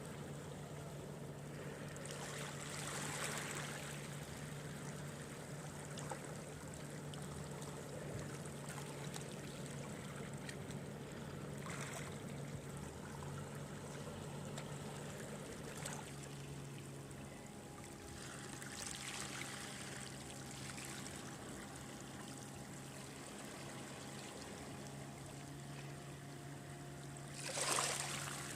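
Sea water washing and trickling around shore rocks and seaweed, with a wave surging in now and then, four times in all, the last near the end the loudest. A steady low hum runs underneath.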